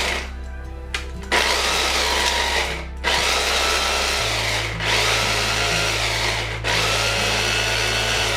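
Electric mini chopper motor chopping garlic and fresh herbs. It runs in pulses: a short burst at the start, then four runs of a second and a half to two seconds with brief breaks between them.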